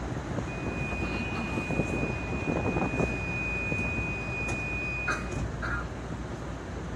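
MRT-3 train's electronic door warning tone: one steady high beep held for about five seconds over the steady din of the car standing at the platform, with a couple of short clunks as it ends, before the train pulls out.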